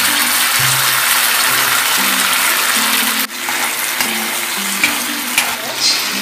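Sauce sizzling in a hot frying pan over sautéed onions and garlic, steady, while a spatula stirs it, with two sharp taps of the spatula on the pan in the second half.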